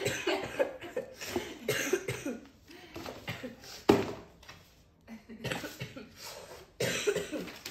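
A person coughing in short bursts amid breathy voice sounds, the sharpest and loudest cough about four seconds in.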